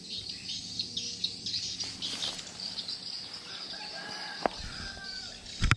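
Steady chirring of insects with bird calls in the background, including a drawn-out call in the second half. Two sharp knocks cut through it, the louder one near the end.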